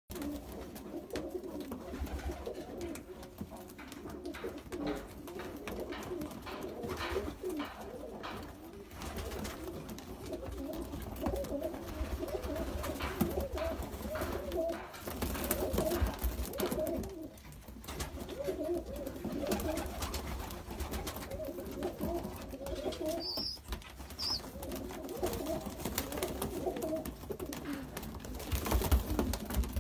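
A loft full of young high-flyer pigeons cooing, many overlapping calls at once, with scattered wing flaps and scuffles. Two short, high squeaks about two-thirds of the way in.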